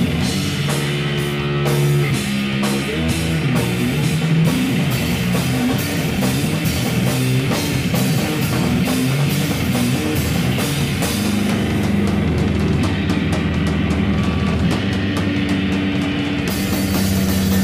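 Live rock band playing loud: electric bass and drum kit, with fast drum and cymbal hits that grow denser in the second half.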